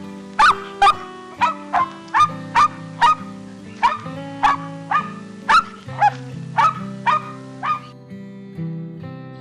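Dog barking repeatedly, about two sharp barks a second, stopping a little before the end, over background music.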